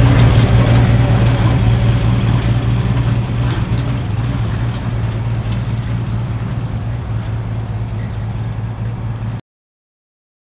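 Old pickup truck's engine running steadily at low revs as the truck drives away, growing gradually fainter, then cut off abruptly near the end.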